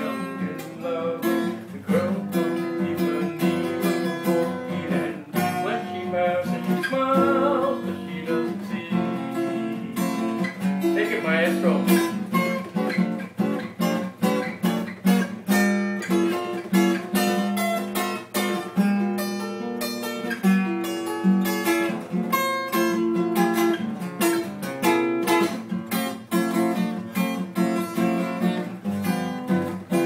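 Acoustic guitar played solo, chords struck in a steady, even rhythm.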